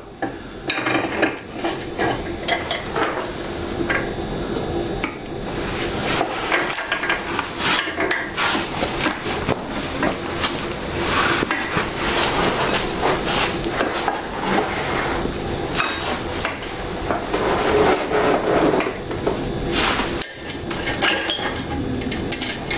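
Steel rear axle bolt being pushed through a motorcycle swingarm, wheel spacers and hub: continuous metallic scraping and clinking with light knocks as the wheel is worked into line.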